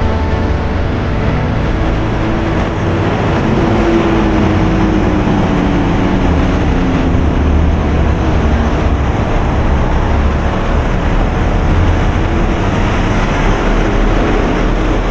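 Road traffic noise: a steady, heavy low rumble of passing buses and other vehicles. One engine note falls in pitch a few seconds in.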